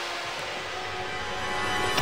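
Cartoon background score: sustained held tones, swelling slightly near the end.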